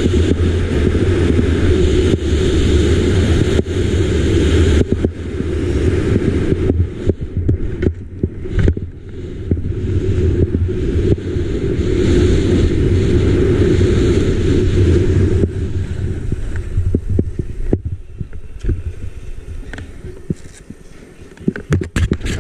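Wind rushing over the camera microphone and skis running over packed snow on a fast downhill run. It eases off about two-thirds of the way through as the skier slows, with a few sharp knocks near the end.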